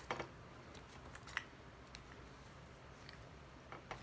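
A few faint, sharp clicks and taps of a hard plastic bath toy being handled and worked at, the clearest at the start and about a second and a half in, over quiet room hiss.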